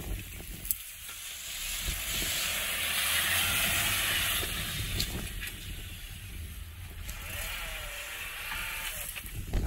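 Suzuki Jimny's 1.5-litre four-cylinder petrol engine running at low revs as the car crawls over rutted dirt, with a hiss of tyres and dirt that swells about two to four seconds in and a couple of sharp knocks from the car working over the ruts.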